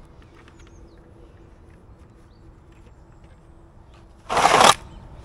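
Small birds chirping faintly over a faint steady hum; about four seconds in, a loud short rushing noise lasting under half a second.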